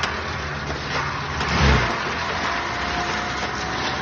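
Diesel engine of a compact track loader running hard under load while its forestry mulcher head grinds up brush and small trees. About a second and a half in, a deeper surge of sound rises and falls.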